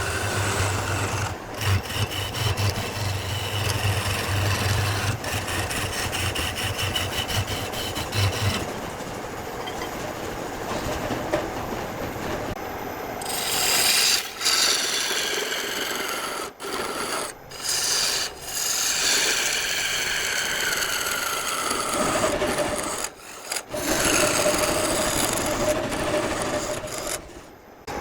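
Wood being worked by a power tool, with rasping and scraping against the wood. A low motor hum stops about a third of the way in, and later the tool's whine slides down in pitch as it bears on the work.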